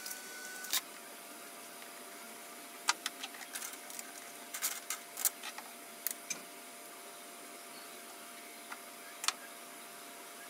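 Scattered clicks and taps of 3D-printed plastic model-car parts being handled and fitted together, a wheel being pushed onto a printed suspension assembly, over a steady faint hum. A sharp tap just under a second in, then irregular clusters of small clicks in the middle and two more near the end.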